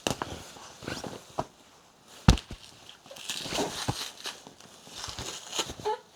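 Handling noises: scattered knocks, clicks and rustling, with one sharp thump about two seconds in.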